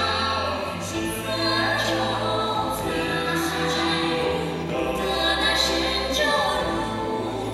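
Recorded stage music with choral singing over sustained chords and a steady bass line.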